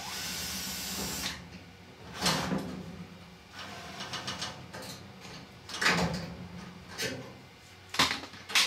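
Hands working inside the back of a vintage Maytag dryer: a scraping rustle for about the first second, then several sharp knocks and clanks of the dryer's parts being handled, the loudest two near the end.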